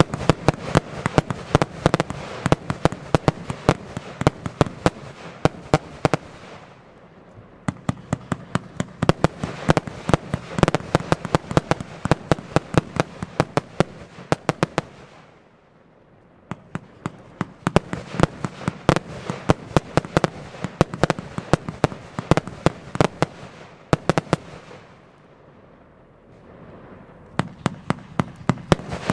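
Evolution Fireworks 'The Corolla' consumer firework going off in long waves of rapid sharp pops and bangs, many a second. The waves are broken by three short lulls, and a fresh wave starts near the end.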